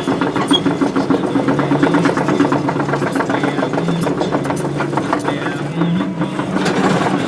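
Volvo excavator's diesel engine running steadily, with rapid, even firing pulses and a low tone that shifts up and down.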